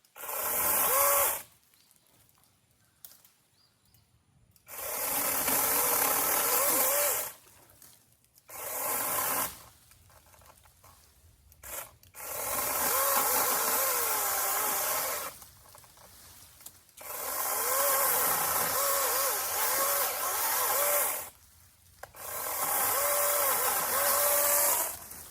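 Small power saw cutting tree branches in six runs of one to four seconds, its motor whine dipping and wavering in pitch as the blade bites into the wood, with short pauses in between.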